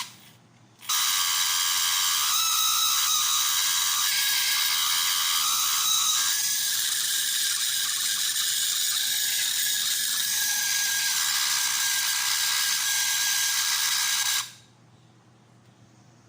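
Small electric motor and gear mechanism of a toy horse-race track running with a steady, high-pitched whirring. It starts about a second in and cuts off suddenly about 13 seconds later.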